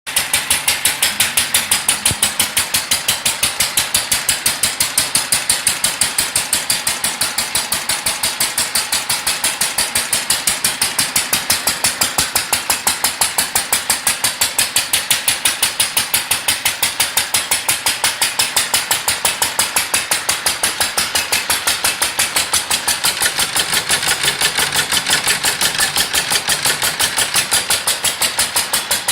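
International Harvester LB single-cylinder stationary engine running steadily, a rapid even beat of firing strokes, while driving a belted corn grinder.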